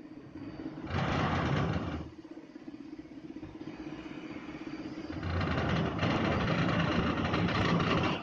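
Mitsubishi Canter HD-L truck's diesel engine running, swelling louder twice: briefly about a second in, then for the last few seconds as the truck moves off.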